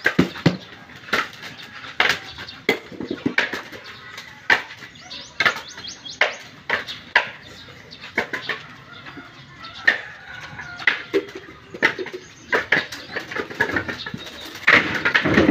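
Dry coconuts being tossed by hand into woven bamboo baskets and knocking against each other: a steady run of irregular dull knocks and husk rustles, one to three a second, growing busier and louder near the end.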